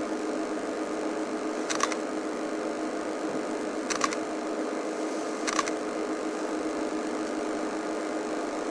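Safari game-drive vehicle's engine idling steadily, with three brief sharp clicks over it.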